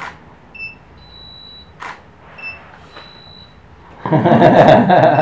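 Camera shutter clicks twice, about two seconds apart, as studio strobes fire. Each click is followed by a short high two-note beep, the strobes signalling they have recycled. A faint high steady tone runs between them. Near the end, a loud burst of voice and laughter.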